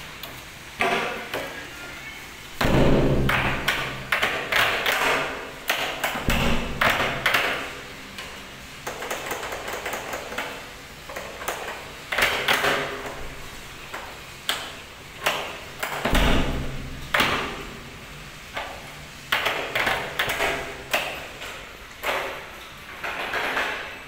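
A newly fitted rim door lock being worked by hand: a run of irregular metallic clicks and clacks as its latch and bolt slide, with three heavier thuds from the door.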